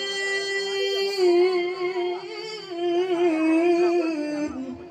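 A male Quran reciter's voice through a microphone, holding a long, ornamented melismatic note in the slow mujawwad style of tilawah. The phrase ends about four and a half seconds in, and faint crowd murmur follows.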